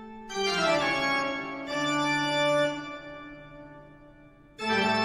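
Background music: slow sustained organ-like keyboard chords, a new chord sounding about every one and a half seconds and fading away before the next comes in near the end.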